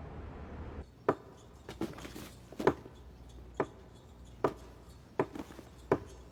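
Slow, evenly spaced footsteps, sharp taps about one every 0.8 seconds, after a low rumble stops about a second in.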